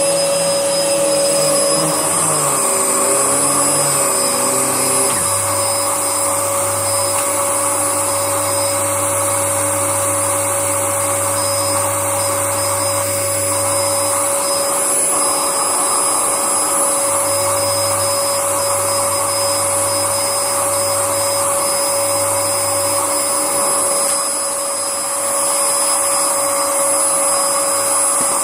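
Vacuum cleaner running continuously as it sweeps up a test mess of dust, dog biscuits and dried dirt: a steady motor drone with a constant high whine, briefly dropping in level about 24 seconds in.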